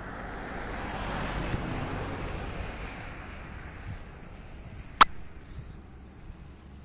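Wind rushing over the microphone, swelling over the first couple of seconds and then easing off, with one sharp click about five seconds in.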